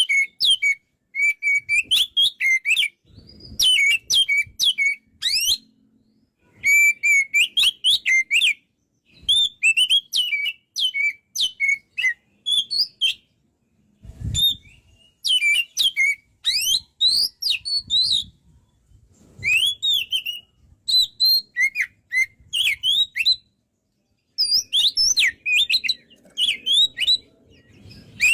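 Oriental magpie-robin (kacer) singing loudly: rapid runs of shrill, gliding whistles and chirps in bursts of a second or two, with short pauses between them. A soft low thump about halfway through.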